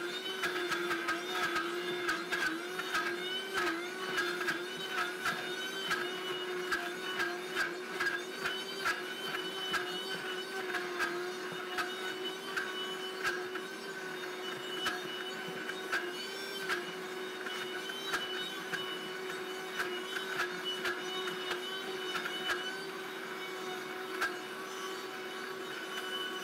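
Vitamix blender motor running steadily at high speed, grinding thick hazelnut spread with the tamper pressed in, a steady whine with many short irregular knocks.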